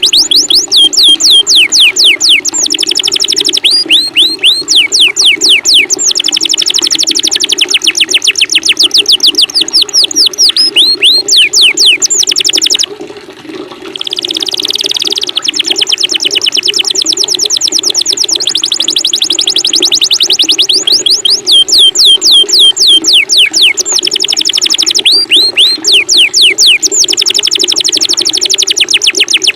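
A small songbird delivering fast rapid-fire 'tembakan' phrases: strings of quick falling whistles, many per second, with a brief break about halfway through. Under it runs a steady low sound of running water.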